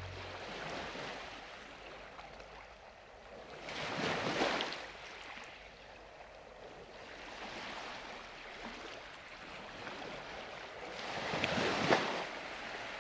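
Sea waves washing, a steady hiss of water that swells up twice, once about four seconds in and again near the end.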